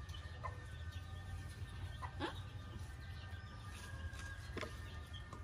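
A few short, sharp animal calls, the strongest about two seconds in and another near the end, over a steady low rumble and faint steady high-pitched tones.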